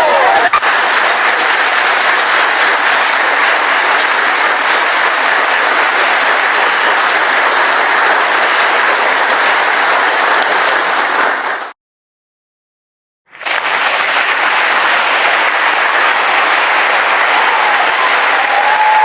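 Large audience applauding in a standing ovation: dense, steady clapping. It cuts off to dead silence for about a second and a half a little past the middle, then resumes at the same level.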